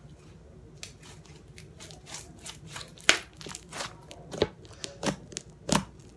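Red glitter slime being poked and squished by hand, giving a string of sharp, irregular pops and clicks that get louder from about three seconds in.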